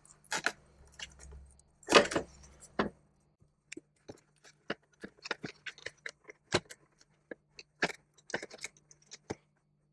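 Hands handling a plastic appliance housing and threading a thin sensor cable through it: scattered light clicks, taps and rustles, with a few louder knocks in the first three seconds.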